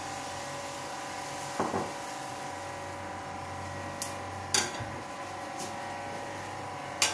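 A steady hum made of several constant tones with a faint hiss over it, broken by a few light clicks and taps, the clearest about four and a half seconds in.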